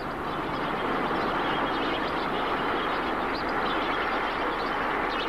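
A large flock of lesser flamingos taking off together in alarm from a shallow lake: a dense, steady rush of many wingbeats and feet splashing across the water. It builds up over the first second.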